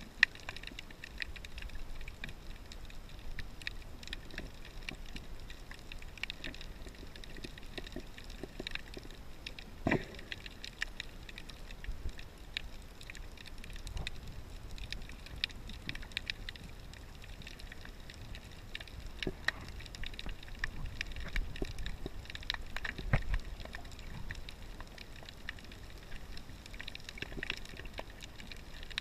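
Underwater sound heard through a GoPro camera's waterproof housing: a steady, muffled low rumble of moving water with scattered faint clicks and crackles. A few louder knocks stand out, one about ten seconds in and another a little past twenty seconds.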